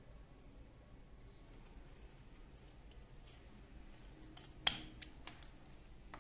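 Scissors snipping paper, faint: a few small snips and clicks trimming the edges of a paper sentiment strip, with one sharper click a little before five seconds in.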